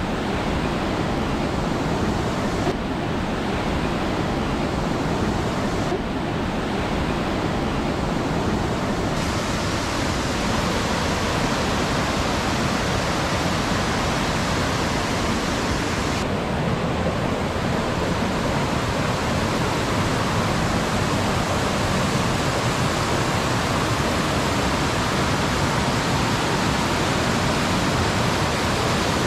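Mountain stream rushing over boulders and rapids: a steady, even rush of water, its hiss shifting a little a few times.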